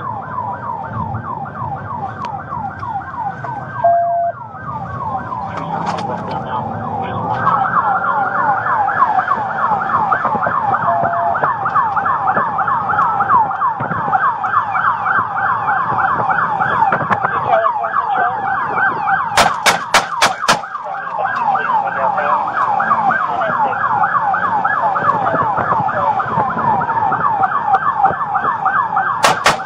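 Police car siren on a fast yelp, its pitch sweeping up and down several times a second, over road and engine noise. About two-thirds through, four sharp cracks come in quick succession, and another quick run of cracks comes at the very end.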